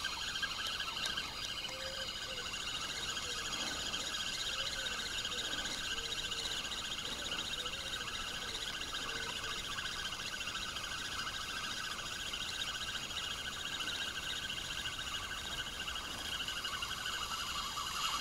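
Spinning reel on a feeder rod being cranked steadily to bring in a hooked fish: a continuous high-pitched whir from the reel.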